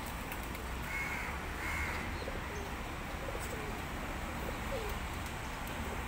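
Birds calling: two short, higher calls about a second in, then a run of short, low, falling notes spaced a second or so apart.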